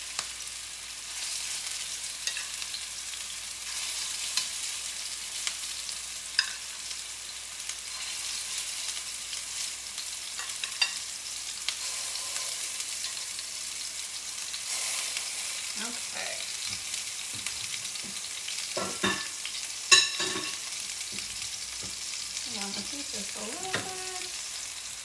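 Turkey meatballs sizzling in olive oil in a stainless-steel skillet: a steady frying hiss. Metal tongs clink against the pan now and then as the meatballs are placed and moved, the sharpest clink about twenty seconds in.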